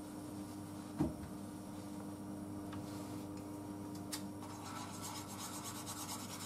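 Wooden cooking chopsticks scraping and rubbing over the surface of a non-stick frying pan, spreading a little oil, mostly in the last two seconds. There is a single light knock about a second in, over a steady faint hum.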